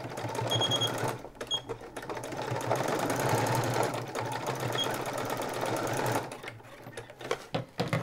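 Domestic electric sewing machine stitching at speed, sewing the overlapped ends of an elastic waistband together. The run slows and stops about six seconds in, followed by a few light clicks.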